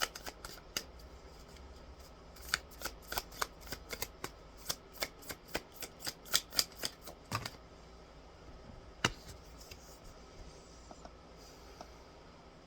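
Tarot deck being shuffled by hand: a quick run of crisp card slaps, about three or four a second, that stops about seven and a half seconds in. One last snap follows a little later.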